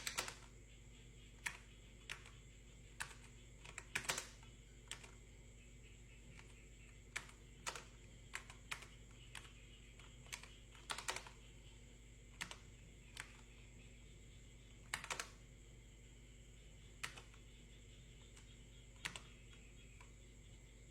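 Slow, irregular typing on a keyboard: single key clicks with gaps between them, now and then two or three in quick succession, over a steady low hum.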